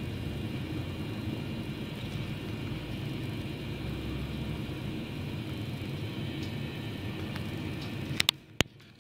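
Steady low rumble and hiss of background noise, with faint steady high-pitched tones above it. A few sharp clicks come near the end, and the background drops away abruptly.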